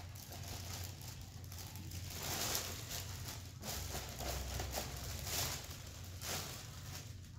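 Paper takeout bag rustling softly in several short bursts as a hand rummages inside it.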